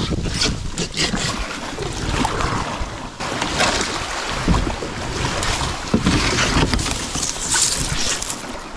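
Water rushing and splashing around an inflatable kayak as it runs a shallow riffle, with wind buffeting the microphone.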